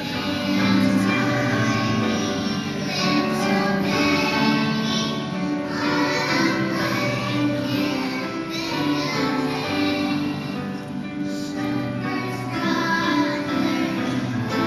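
Young children's choir singing a Christmas song, holding notes that change in pitch from phrase to phrase.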